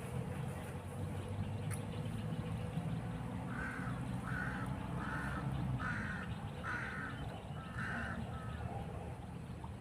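A crow cawing six times in a row, harsh calls spaced less than a second apart, over a steady low rumble.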